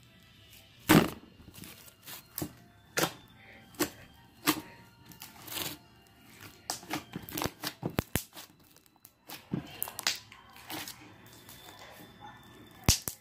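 Glossy pink slime being stretched, pulled apart and squished by hand, giving irregular sharp pops and clicks, the loudest about a second in.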